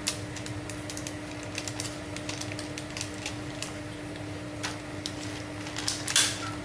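Scattered light clicks, taps and rustles of paper and small embellishments being handled on a tabletop, over a steady faint hum. A louder rustle comes near the end.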